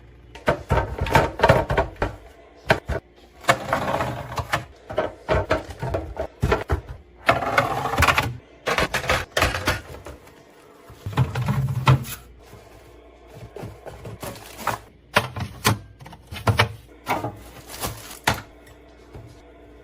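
Items being handled and set into a mini fridge during restocking: a run of clicks and clatters, several bursts of rustling, and a few dull thumps.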